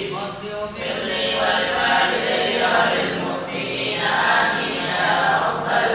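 A group of male voices chanting together in unison, reciting a wirid, a devotional Islamic litany, in long flowing phrases.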